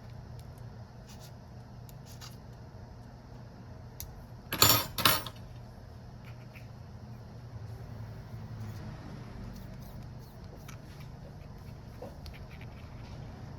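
Small tools and parts being handled at a repair bench: faint scattered clicks over a steady low hum, with one brief double clatter about five seconds in, the loudest sound.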